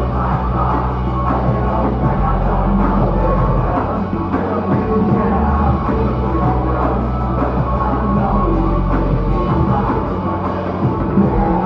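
Live concert music played loud through a venue PA: deep bass notes held for about two seconds at a time, with drums over them.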